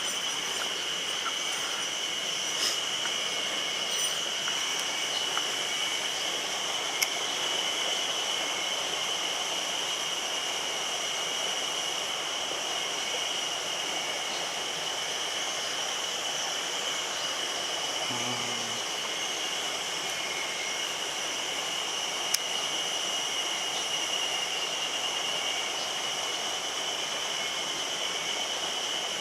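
Mountain stream rushing steadily, with a constant high-pitched drone over the water. Two sharp clicks sound about a third and three quarters of the way through.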